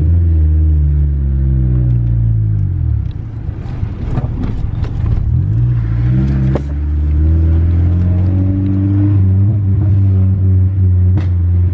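Honda Civic engine running through a leaking, partly rusted-off exhaust, heard from inside the car: the revs drop off over the first few seconds, there is a run of popping with one sharp backfire crack about six and a half seconds in, then the engine picks up again and drones steadily under load.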